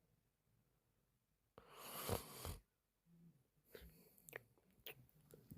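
Sleeping woman's breathing: about one and a half seconds in, a loud noisy breath lasting about a second. After it come faint low sounds and several soft mouth clicks and smacks.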